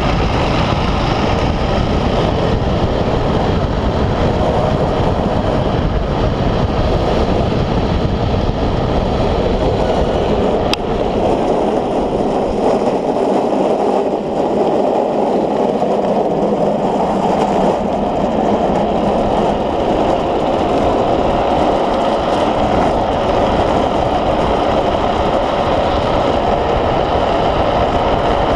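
Onboard sound of a gravity-powered speed trike racing downhill: a steady rush of wind and wheels rolling on asphalt. The low rumble fades for several seconds near the middle, and a single sharp click comes about 11 seconds in.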